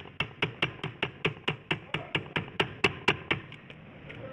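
Rapid, evenly spaced hammer strikes, about four a second, on a transmission part being worked apart. They stop about three seconds in, ending with a few lighter taps.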